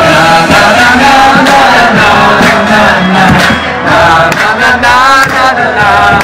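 Pop song playing, with voices singing over a dense, steady backing.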